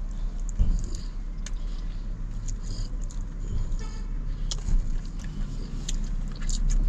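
Wet mouth sounds of a man eating a sauced chicken wing: scattered short smacks and chewing clicks, over a steady low rumble.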